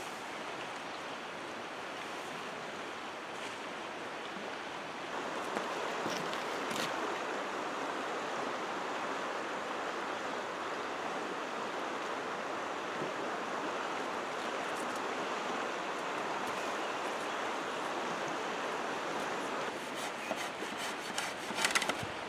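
Steady rushing of a creek flowing, a little louder from about five seconds in. Near the end, a few sharp cracks and knocks from handling dead branches.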